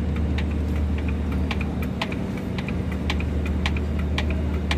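Hand hydraulic crimping tool being pumped to crimp a lug onto a heavy power cable: irregular light clicks, about three a second, over a steady low hum.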